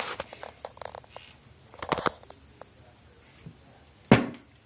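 Scattered light taps and clicks, a cluster of them about two seconds in, then a single loud thump near the end.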